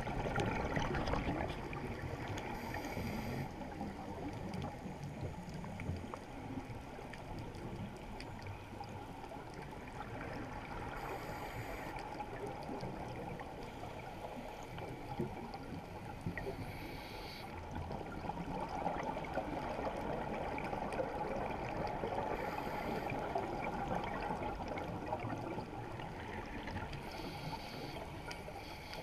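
Underwater ambience heard through a camera housing: a steady low rushing, broken five times by short hissing bursts of exhaled bubbles from a scuba diver's regulator, several seconds apart.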